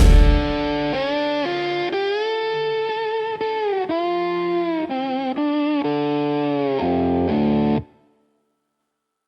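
Instrumental dark country music: a sustained electric guitar lead melody with vibrato and bending notes over a bass line. The music cuts off suddenly about eight seconds in, leaving silence.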